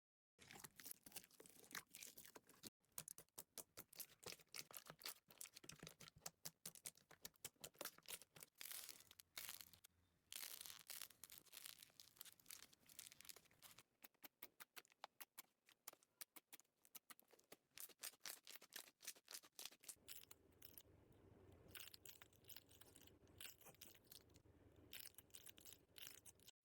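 Slime being squeezed and stretched by hand, quiet and close: a dense run of quick crackling clicks and small pops, turning to a softer squishing from about two-thirds of the way in.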